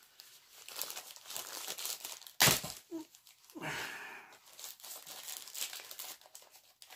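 A postal package being opened by hand: packaging crinkling, rustling and tearing, with one short, sharp, loud tear about two and a half seconds in.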